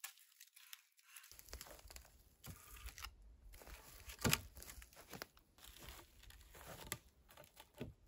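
Wooden poles being handled and leaned against a shelter frame: rustling and crunching of dry bark and forest litter, broken by several sharp wood-on-wood knocks, the loudest about four seconds in. A low rumble sits underneath from just over a second in.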